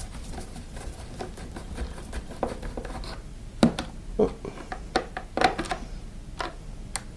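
Torx screwdriver undoing screws from a vacuum cleaner's plastic casing: scattered small clicks and scrapes, with a few louder knocks in the middle.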